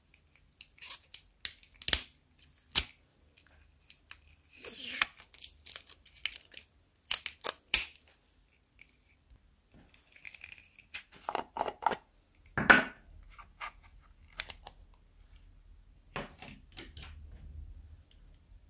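Plastic packaging being handled: the seal strip is torn off a pear-shaped plastic cream jar, and the jar is twisted open, giving sharp plastic clicks and scratchy tearing. One louder crack comes a little past the middle.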